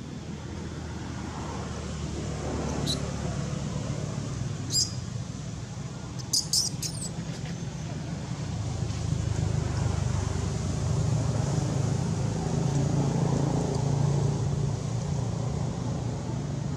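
Low, steady rumble of vehicle traffic with an engine hum, swelling louder through the second half. A few short, sharp high clicks or chirps come between about three and seven seconds in.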